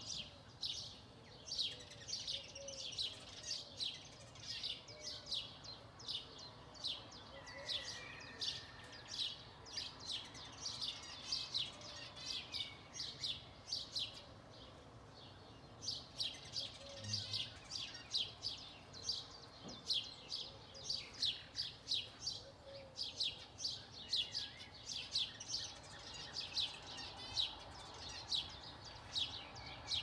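Songbirds in the early-morning chorus: short, high chirps repeated about three times a second almost without break, pausing for a couple of seconds midway, over fainter songs of other birds.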